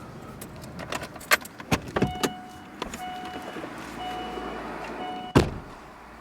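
Clicks and rattles inside a car, then the car's electronic warning chime beeping on and off for about three seconds, cut off by a loud door slam near the end.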